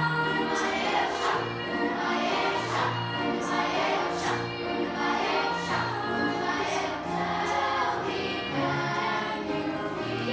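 Children's choir singing a song, over an accompaniment that carries low held bass notes.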